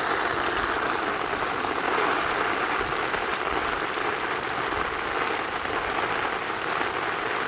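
Heavy rain pouring steadily, a dense, even hiss of falling drops.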